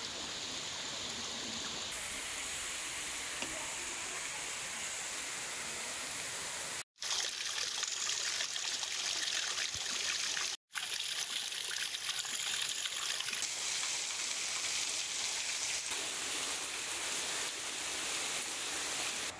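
Waterfall: a steady rushing hiss of water falling down a cliff face in spray onto rocks. The sound cuts out briefly twice.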